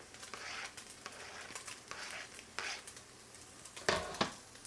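A spatula scraping sliced onions off a cutting board so they drop into a pot of cooking ground pork, then two sharp knocks about four seconds in as the board is set down on the counter.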